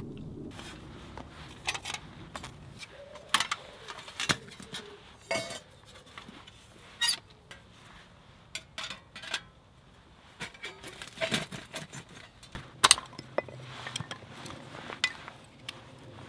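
Metal panels of a small folding firebox stove being handled and slotted together. It gives a string of irregular sharp metallic clinks and clanks.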